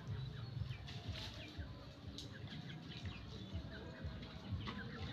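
Birds calling with many short, scattered falling chirps over a low steady rumble.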